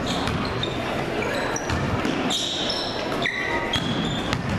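Basketball game on a hardwood gym floor: a ball being dribbled, sneakers giving short high squeaks several times, and spectators talking underneath.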